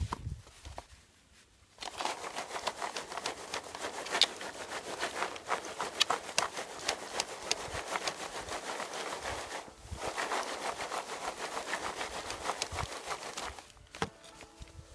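Single-clove garlic sets rattling and tumbling against a plastic mesh crate as it is shaken to sift them by size. The rattling is made of many small clicks, comes in two long runs with a short break about two-thirds through, and ends with a knock.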